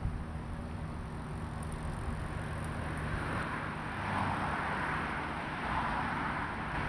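Road traffic on the bridge: a steady low engine rumble, with tyre noise swelling as vehicles pass from about three seconds in.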